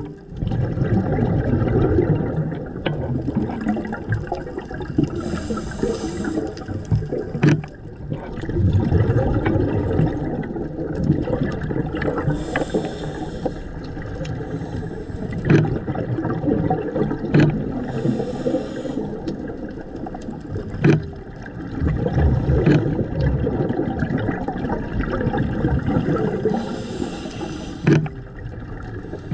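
Underwater bubbling and water rumble with a hiss about every six to seven seconds, the breathing rhythm of a scuba diver's regulator: a hiss on each inhale, bubbles on each exhale. Scattered sharp clicks are heard throughout.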